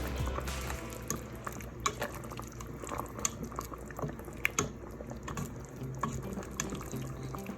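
Pot of chicken broth boiling on the stove, a steady bubbling with scattered sharp clicks.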